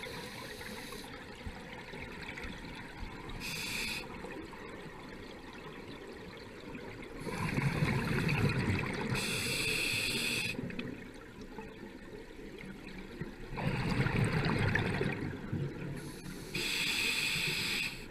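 A diver breathing through a scuba regulator, heard underwater: twice, a burst of exhaled bubbles rumbling for about two seconds, each with a short high hiss of inhalation from the regulator.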